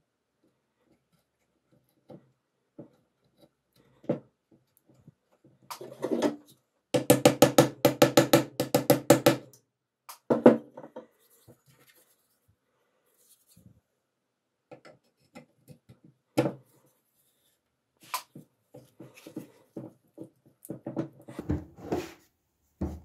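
Knocks and taps on a wooden knife handle and its rusty metal ferrule as the ferrule is fitted, with a fast run of taps, about nine a second, from about 7 to 9.5 seconds in. Near the end come scattered small clicks as the blade is set into the handle.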